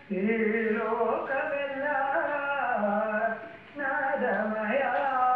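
A caller singing an Indian classical melody over a telephone line: held notes with gliding ornaments between them and a short breath about two-thirds of the way through.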